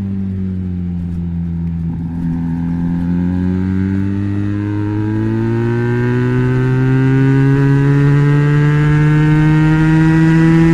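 Benelli BN302's 300 cc parallel-twin engine running through an Arrow exhaust with the dB killer fitted. The engine speed dips a little in the first two seconds, then climbs slowly and steadily, getting louder toward the end.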